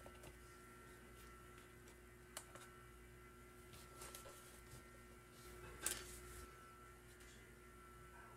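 Near silence: a faint steady hum with a few soft clicks and taps from hands handling a digital kitchen scale, the clearest about six seconds in.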